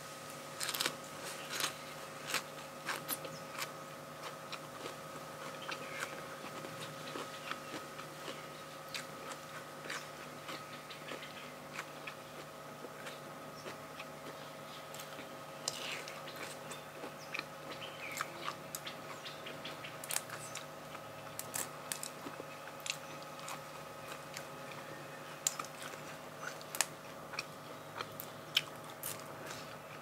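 Close-up eating sounds: steady chewing with scattered crisp bites and crunches of raw vegetables and spicy seafood papaya salad.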